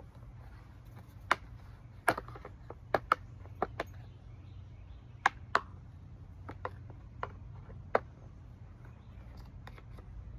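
A screwdriver prying and tapping at small lawnmower parts: about a dozen sharp, irregular clicks and taps over a steady low hum.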